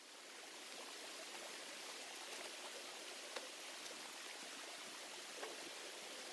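Shallow creek flowing over rocks: a steady rushing hiss of running water, with a couple of faint ticks about halfway through and near the end.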